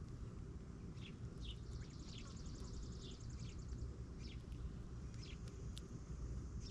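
Small songbirds chirping: a string of short falling chirps, with a fast high trill about two seconds in, over a steady low rumble.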